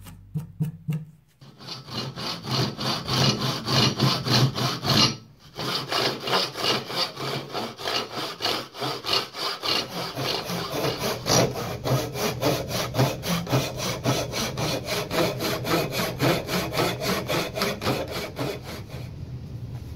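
Hand backsaw cutting into the end of a hardwood axe handle, in steady back-and-forth strokes, with a brief pause about five seconds in.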